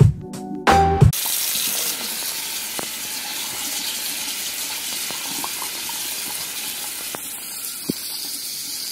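About a second of music that cuts off abruptly, then a kitchen faucet running a steady stream of water onto kale in a stainless steel mesh strainer in a sink.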